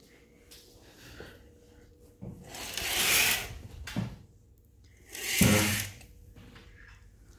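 Curtains being drawn along their track: two sliding rasps of the runners, the first lasting over a second and the second shorter and louder, with a light knock between them.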